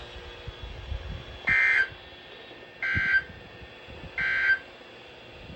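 Three short bursts of NOAA Weather Radio SAME digital data, each a harsh warbling screech about a third of a second long, spaced about a second apart. Sent right after the end of the spoken warning, they are the End of Message code that closes the alert.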